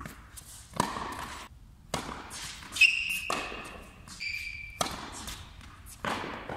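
Tennis rally on an indoor hard court: racket strikes on the ball and ball bounces about once a second, echoing in the hall, the loudest hit about three seconds in. Two short high squeaks of shoes on the court surface come in the middle.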